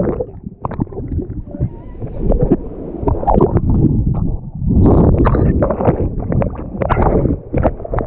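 Turbulent water rushing and bubbling around a waterproof action camera as it is carried through a wild-river pool channel, dipping under the surface and back out, with crackling bubbles and splashes. The rush swells louder about five seconds in.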